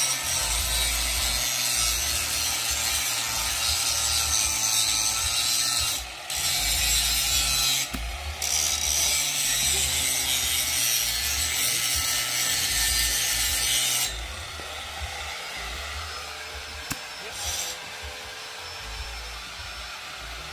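Compressed air hissing through an air chuck into a truck tire being inflated, cutting out twice briefly, then stopping about two-thirds of the way in.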